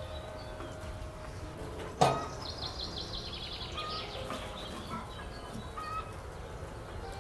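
A single metal clank about two seconds in as the door of a sheet-metal wood stove is opened. After it a bird sings a rapid run of repeated chirps that falls in pitch, with other scattered bird calls around it.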